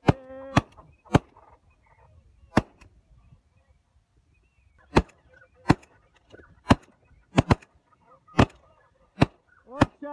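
Shotguns firing at ducks in flight: about a dozen shots, irregularly spaced, some in quick pairs and some much louder than others.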